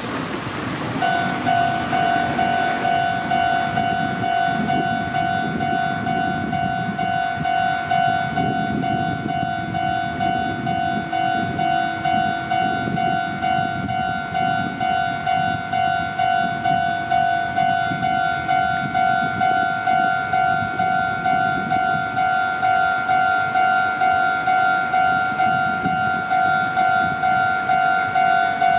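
Japanese level-crossing electronic warning bell starting about a second in and ringing on steadily at about two strokes a second, over a low rumble.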